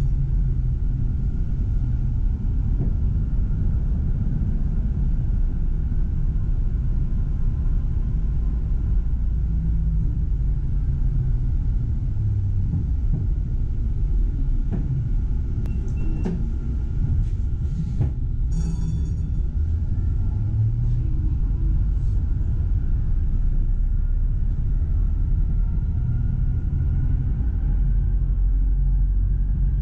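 Tram running along the track, heard from inside: a steady low rumble with a faint whine that rises and falls. Several clicks come a little past halfway, followed by a brief ringing tone.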